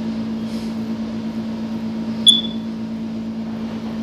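Steady machine hum with one low pitch. About two seconds in comes a single sharp metallic clink that rings briefly, steel tools on a truck clutch pressure plate.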